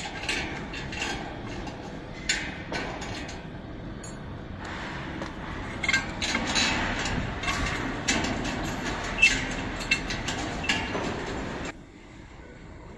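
Metal clinks and knocks of galvanized steel square tubing being fitted together into a calf handler frame, a few sharp strikes standing out over steady background noise that drops away suddenly near the end.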